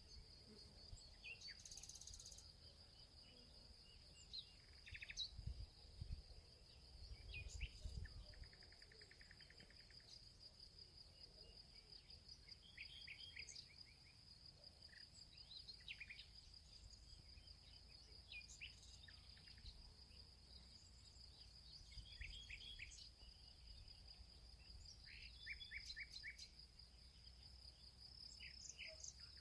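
Forest summer ambience: a steady, high-pitched insect drone like a cricket's, with scattered short bird chirps and quick trills over it. A few soft low thuds come in the first third.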